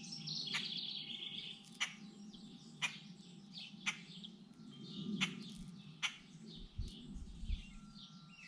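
Small birds chirping and calling, with sharp metallic clicks about once a second as the links of a loose chainsaw chain knock together while it is being untangled by hand.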